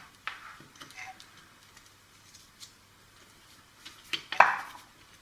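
Light clicks and knocks of the plastic case and parts of an opened toy walkie-talkie being handled on a workbench, with a sharper clack about four seconds in.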